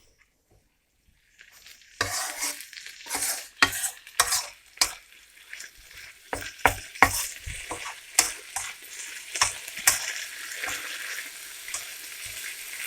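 Chopped vegetables and turkey salami frying in a pan, sizzling as they give up their moisture, with a utensil scraping and knocking against the pan as they are stirred. The sizzle and stirring start about a second and a half in.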